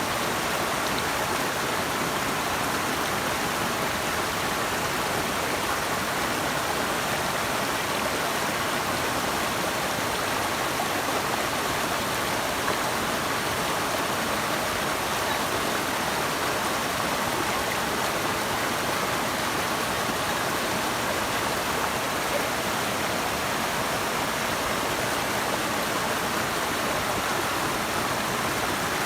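Flowing water rushing steadily, an even unbroken wash of sound with no separate splashes or drops standing out.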